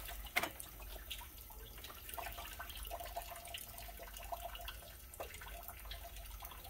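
Engine coolant trickling and dripping from the radiator's disconnected lower hose into a drain bucket, with two sharp knocks right at the start.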